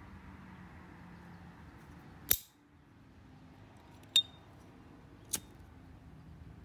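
Gold-plated ST Dupont Line 2 gas lighter: three sharp metallic clicks. The lid snaps shut a little over two seconds in. It flicks open about two seconds later with a short high ringing ping, the lighter's well-known 'cling'. A softer click follows about a second after that as it is lit again.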